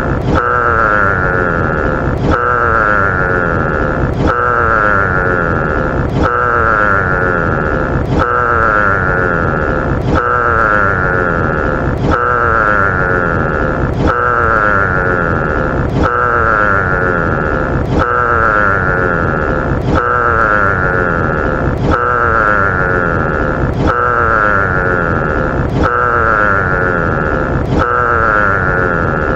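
Giraffe call: the same roughly two-second sound repeated over and over at even spacing, each repeat starting abruptly.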